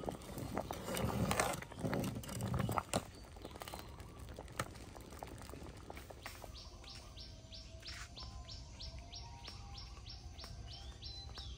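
A bird calling a steady run of short, high, down-slurred notes, about three a second, starting about six seconds in. Before that, a few knocks and rustles of handling are the loudest sounds.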